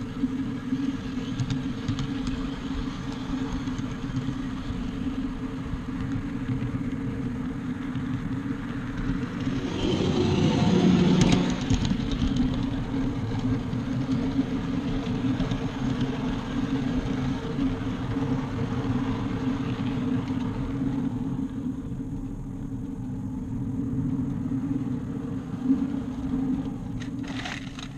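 Backyard railway train running along its track: a steady motor hum with wheel-on-rail noise. It gets louder for a couple of seconds about ten seconds in, and a few clicks come near the end.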